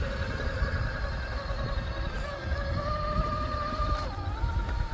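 Axial SCX6 Honcho RC crawler's electric motor and gears whining at crawling speed, the pitch shifting up a little about two seconds in and shifting again about four seconds in, over a low rumble.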